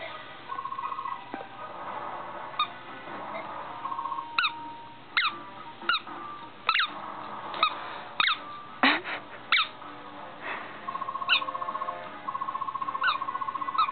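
Dog chewing a squeaky tennis ball, squeezing out a string of short squeaks that slide in pitch, irregularly about one a second. Between them, and through the last few seconds, a buzzing squeal holds on one pitch.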